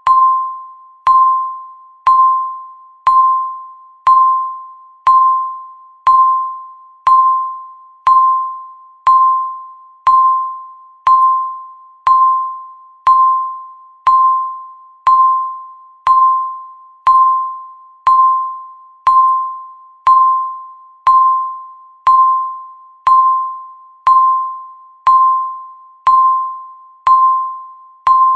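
Countdown timer beep sounding once every second, each a single clear tone that starts sharply and fades away like a chime, ticking off the seconds.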